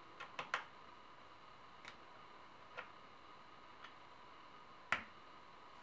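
Scattered light clicks and taps of a tool against the parts of a Tavor bullpup rifle as its barrel latch is pushed in and the barrel is worked loose. A quick run of three clicks comes near the start, single clicks follow about two, three and four seconds in, and the sharpest one comes just before five seconds.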